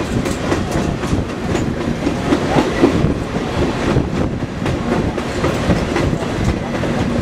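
Passenger train rolling across a steel truss bridge, heard from on board: a steady rumble of wheels on the rails with scattered clicks.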